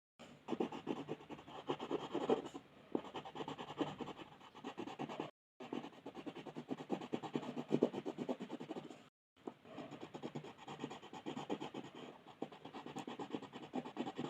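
Rapid back-and-forth colouring strokes scratching on paper, a close, dense shading rhythm, broken twice by brief cuts to silence.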